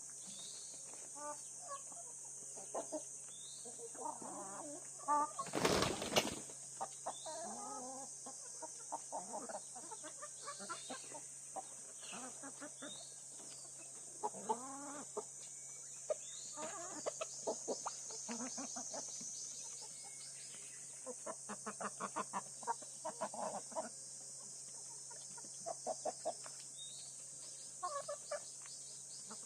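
Domestic chickens clucking in short calls, with a brief burst of wing flapping about six seconds in. A steady high-pitched hiss runs underneath.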